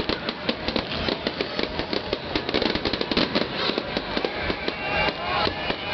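Fireworks display going off: a dense, continuous run of sharp bangs and crackles, several reports a second.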